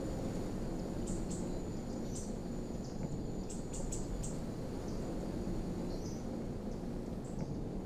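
Outdoor nature ambience: a steady low rumble under a thin, steady high tone and short high chirps of small birds, with a quick run of chirps about three and a half to four and a half seconds in.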